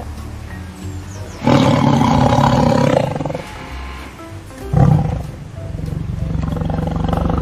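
Tiger roaring: a loud roar lasting about a second and a half starts about a second and a half in, and another begins near the five-second mark, over background music.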